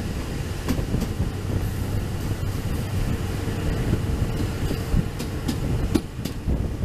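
Sri Lanka Railways Class W3 diesel locomotive under way, its engine a steady low drone under the rumble of the wheels on the track. Sharp clicks of wheels over the rail come through, several in quick succession near the end.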